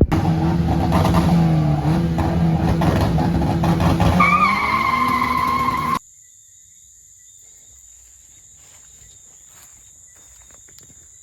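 Turbocharged Honda D16 car engine running hard with a steady pitch, joined about four seconds in by a high tyre squeal, all cutting off abruptly about six seconds in. What follows is much quieter: a steady high insect buzz with a few faint clicks.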